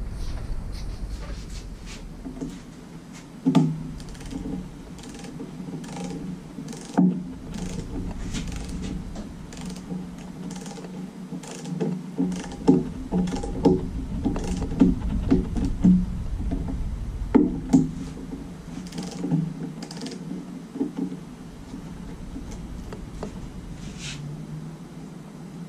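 A small torque wrench working the oil pan bolts: scattered sharp metallic clicks and taps, several close together in the middle stretch, over a steady low hum.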